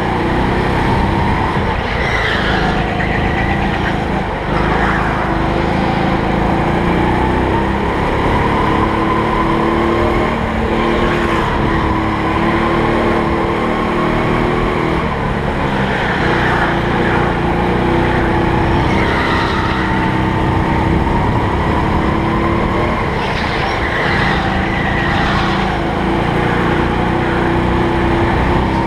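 Rental go-kart engine heard from onboard while lapping at speed, its pitch rising and falling as the kart speeds up and slows for the corners.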